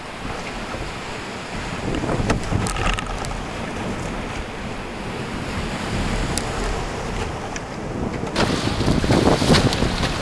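Surf breaking around an open canoe, with wind buffeting the microphone. About eight seconds in the rush of wind and water turns louder and harsher.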